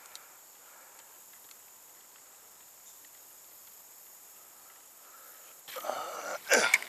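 Faint pond-side outdoor ambience with a steady high insect drone. About six seconds in, loud rustling and knocking as the spinning rod and reel are handled, with one sharp peak just before the end.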